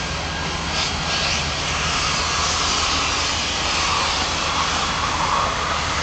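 Pressure washer's engine running steadily, with a steady hiss over it.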